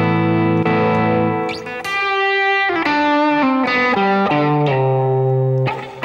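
Stratocaster-style electric guitar with a little distortion, playing open-voiced chords with wide intervals. A chord rings, then a new one is struck, then a short run of single notes steps down in pitch and settles on another held chord near the end.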